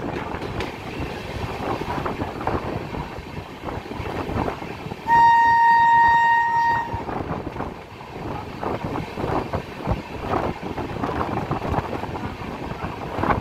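An Indian Railways train horn sounds one long, steady blast of nearly two seconds about five seconds in, over the rumbling noise of the moving train.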